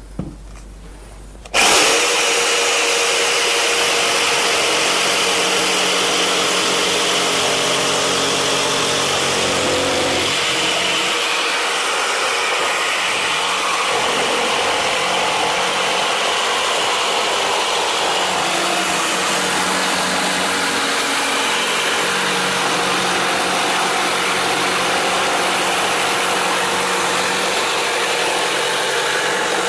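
Bosch GST 135 BCE corded jigsaw switching on about a second and a half in and running steadily as it makes a plunge cut into thick timber with full pendulum action.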